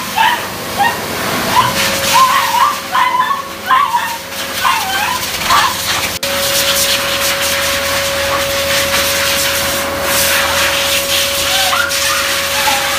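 Beagle puppy whining and yelping in short, wavering cries over the steady whir and rush of air from a pet blow dryer. The cries stop about six seconds in, leaving the dryer running on, with a couple of faint whimpers near the end.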